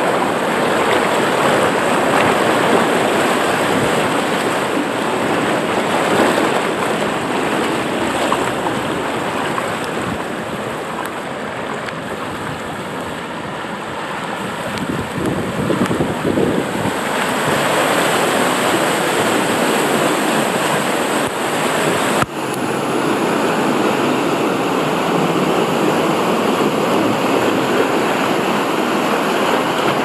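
Rushing, splashing water pouring down a wild-river water slide, heard from a camera riding along in the flow. The water noise is steady, easing a little midway, and a brief sharp knock sounds about two-thirds of the way through.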